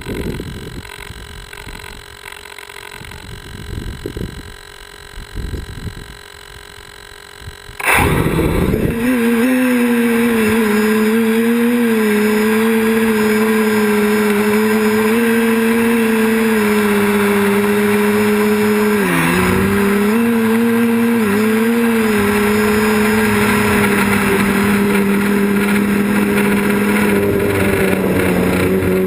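Low uneven rumbles and thumps for about eight seconds, then a quadcopter's electric motors and propellers spin up suddenly and run with a loud, steady buzzing hum, its pitch dipping briefly twice about two-thirds of the way through.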